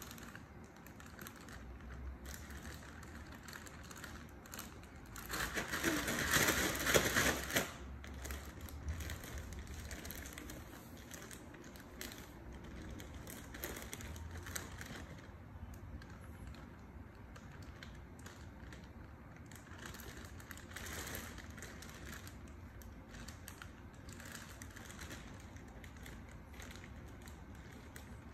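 Light clicking and tapping of small objects being handled, with a louder crinkling, rustling burst lasting about three seconds, starting around five seconds in.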